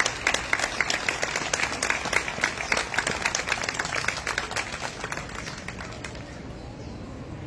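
Crowd applauding, the clapping thinning out and dying away about six seconds in.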